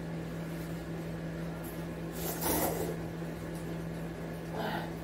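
A person slurping cup-ramen noodles: two short slurps, one about halfway through and one near the end, over a steady low hum.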